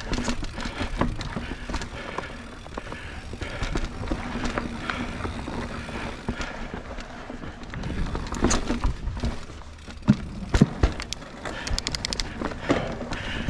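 Mountain bike ridden over rough singletrack: tyres on dirt with the frame and chain rattling over roots and rocks, and a few hard knocks about ten to eleven seconds in.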